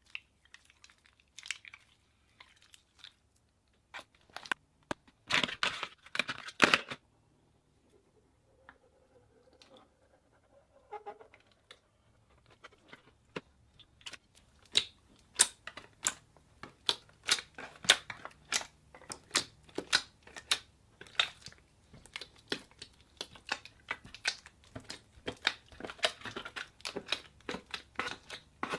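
Slime being squeezed and pressed by hand, giving sharp crackles and pops: a dense cluster early on, a quieter pause, then a steady run of pops two or three a second through the second half.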